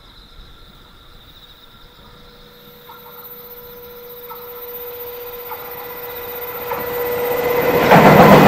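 JR Freight EF210 electric locomotive hauling a container freight train, approaching and growing steadily louder with a steady tone. About eight seconds in it reaches the railway bridge and a loud rush of wheel and track noise sets in.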